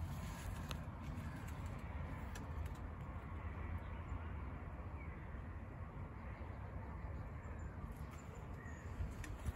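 Outdoor ambience: a steady low rumble with faint bird chirps now and then, and a few sharp clicks near the end.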